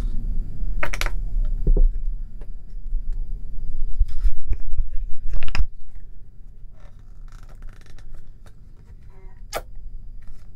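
Close handling sounds of a plastic toothpaste tube squeezed out into a small glass bowl: crinkling and a few sharp clicks, busiest in the first half and quieter later, over a steady low rumble.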